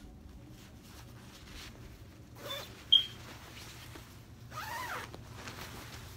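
Nylon windbreaker fabric rustling as it is handled and unfolded, with a sharp click just before halfway and a brief zipper-like rasp about five seconds in.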